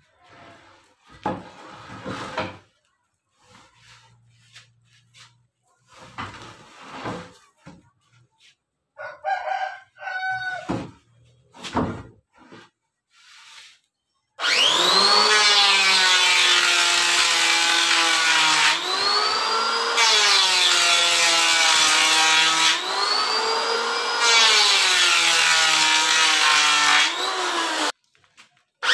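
Electric wood planer starting about halfway in and running loud, its motor pitch sagging and recovering several times as the cutters bite into the board, then stopping briefly near the end. Before it, scattered knocks and handling of wood.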